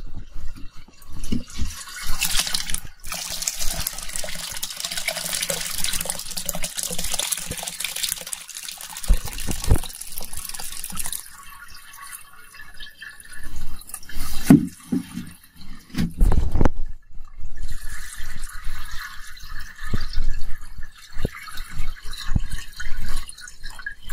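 Fermented crushed grape must being poured through a mesh straining cloth into a basin, the juice splashing and trickling, with a few dull knocks of handling. The straining is meant to stop the fermentation.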